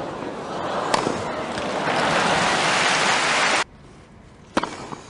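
Tennis racket striking the ball once, then crowd applause and cheering swelling across the stadium and cutting off suddenly about three and a half seconds in. About a second later a single racket strike on the ball comes from a serve.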